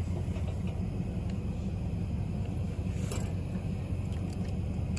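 Steady low rumble of a vehicle engine idling, with a faint click about three seconds in.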